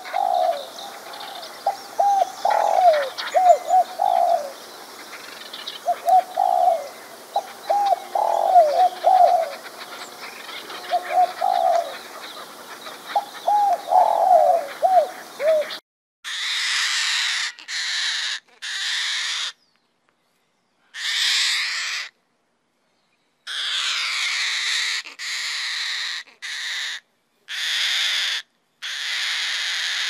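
A dove cooing in repeated short phrases of several soft notes, over faint outdoor ambience. About halfway through it switches to a cockatoo giving a series of loud, harsh screeches with short silent gaps between them.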